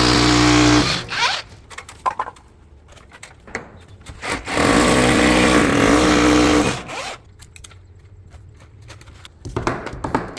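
Power tool motor, likely a drill, running at a steady pitch in two bursts: one brief at the start and a longer one of about two and a half seconds midway, with scattered knocks between.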